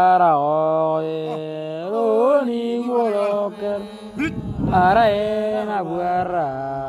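A voice singing a slow, chant-like Otuho (Lotuko) song from South Sudan, holding long notes that step from one pitch to the next with short bends between them.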